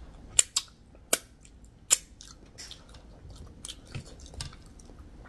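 Close-miked mouth sounds of eating by hand: wet smacks and chewing. There are four sharp smacks in the first two seconds, then softer, irregular chewing.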